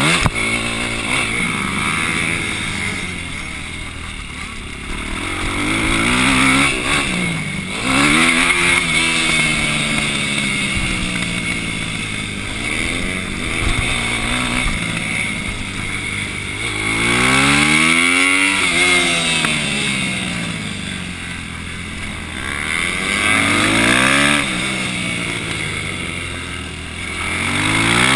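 Supermoto racing motorcycle engine heard from on the bike, revving hard and dropping off again and again, its pitch repeatedly climbing and falling as the rider accelerates and backs off through the course, with a rush of wind noise.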